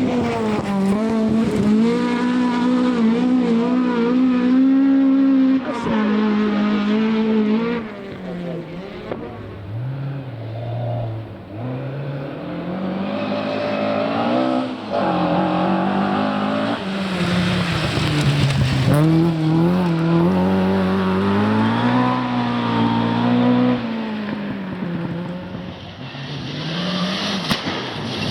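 Rally car engine at high revs, its pitch climbing and dropping again and again as it changes gear and lifts off for corners, easing off for a few seconds a third of the way through before pulling hard again.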